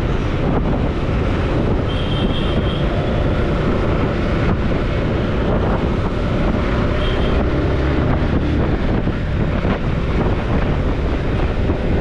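Motorcycle running steadily at a moderate cruising speed, its engine and road noise mixed with wind buffeting the microphone.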